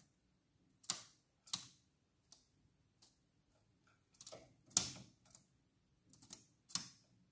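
Scattered faint taps and clicks at irregular intervals, the loudest about five seconds in, from a tame thrush nightingale hopping and pecking on the newspaper floor and wire bars of its cage.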